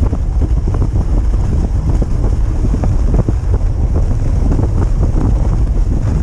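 Steady wind rumble buffeting the microphone of a camera riding on a moving dog sled, with scattered light scrapes and crunches from the sled and dogs travelling over packed snow.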